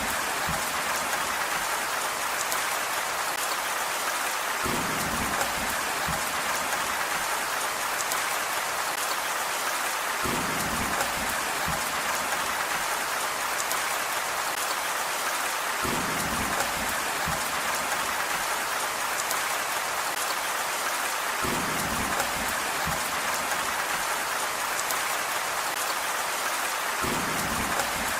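Steady, dense rainfall, an even hiss throughout. A short low rumble comes back about every five and a half seconds.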